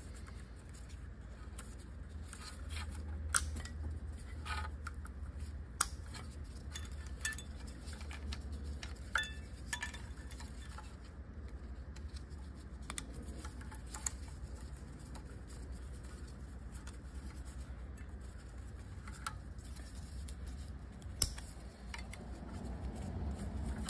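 Scattered small clicks and rattles of wiring-harness connectors and wires being handled and pushed onto an automatic transmission's valve-body solenoids, over a low steady hum.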